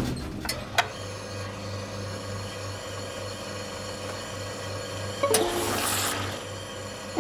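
Hot-drinks vending machine working: a couple of sharp button clicks, then the machine running with a steady low hum. About five seconds in comes a short hissing gush as it dispenses the drink.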